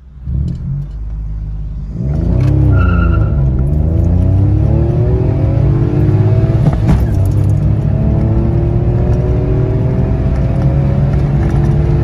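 Citroen C1's 1.0-litre three-cylinder petrol engine ticking over, then pulling away hard under full throttle about two seconds in. The revs dip as the clutch bites and change once near the middle as it upshifts, then climb steadily in the next gear.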